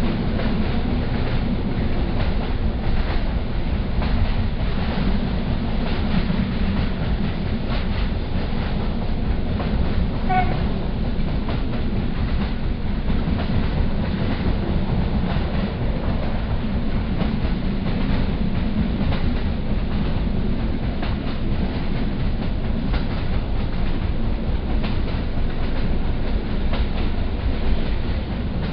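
Inside a moving PKP passenger coach: a steady rumble of the wheels on the track with rapid clickety-clack from the rail joints. A brief high squeak comes about ten seconds in.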